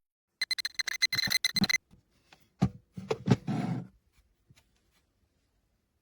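Digital alarm clock's electronic beeper sounding a rapid burst of high beeps for about a second and a half. A few dull knocks and a brief rustle of handling follow.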